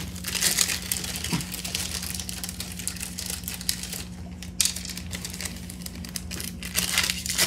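Small clear plastic parts bag crinkling and rustling as it is handled, with irregular small crackles and clicks. A steady low hum runs underneath.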